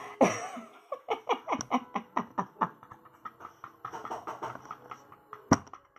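A woman laughing heartily: a fast run of short "ha" bursts for about three seconds, trailing off into softer giggles, with one sharp knock near the end.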